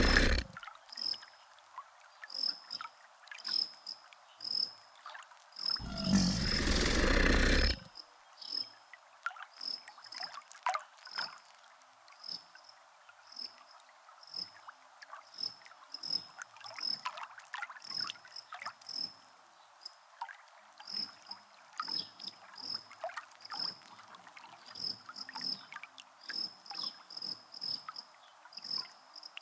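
Wild nature ambience of chirping crickets or insects, repeating about twice a second, with scattered short clicks. About six seconds in, a loud, deep roar lasts about two seconds.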